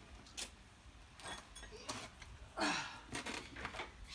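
Scattered light knocks and clicks, with a short scrape about two and a half seconds in, from pine floor battens and a bracket being handled on a van's bare metal cargo floor.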